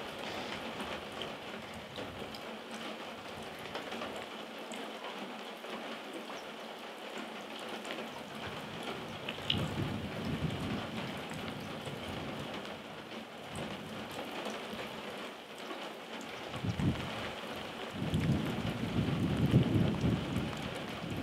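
Steady rain falling on wet swampland. Gusts of wind rumble on the microphone about ten seconds in, and again, louder, through the last few seconds.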